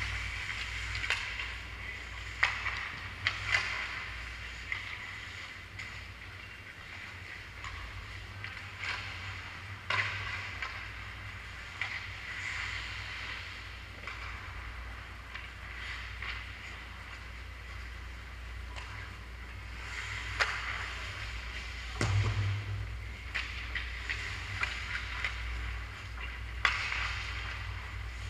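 Ice hockey play on an indoor rink: skates scraping and hissing on the ice in uneven swells, broken by sharp knocks of sticks and the puck, one heavier thump past the middle. A steady low hum runs underneath.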